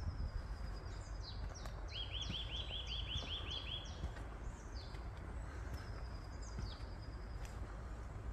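Songbirds singing. About two seconds in, one bird gives a quick run of about ten similar rising whistled notes, while thinner, higher notes sound before and after it. A steady low rumble runs underneath.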